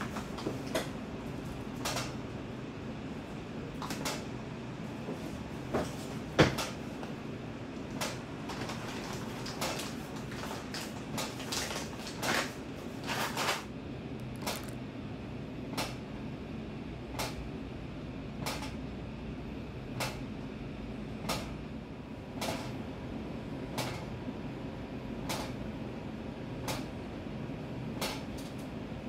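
Sharp clicks or taps repeating about every second and a half over a steady low hum, with one louder knock about six seconds in.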